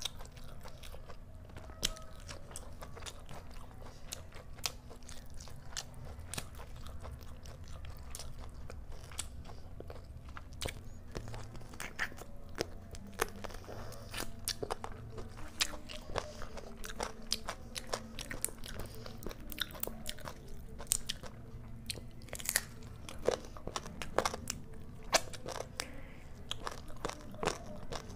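Close-miked chewing and biting of chicken curry and rice eaten by hand, with many sharp mouth clicks scattered throughout over a faint low hum.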